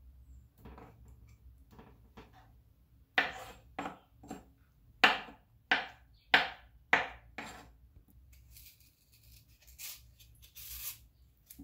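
Kitchen knife chopping through mango flesh onto a wooden cutting board: a run of about eight sharp knocks in the middle of the stretch. Short, fainter scraping sounds follow near the end.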